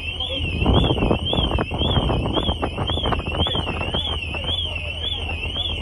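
Car alarm sounding: one high tone warbling up and down about twice a second, over a steady low hum. A louder burst of clattering noise runs from about half a second to four seconds in.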